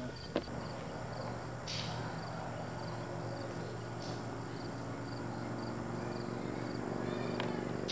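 Crickets chirping outdoors, a steady train of short high chirps about three a second, with a single sharp click about half a second in.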